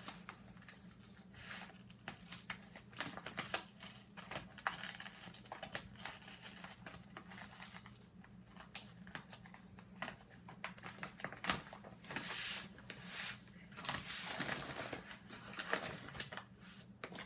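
Packaging being torn open and crinkled by hand: irregular rustling, tearing and crackling with a few sharper snaps, over a faint steady low hum.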